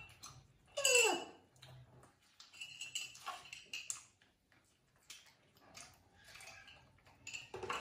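A pet macaque monkey gives a short squeal that falls in pitch about a second in, then fainter high calls and light clinks of dishes follow.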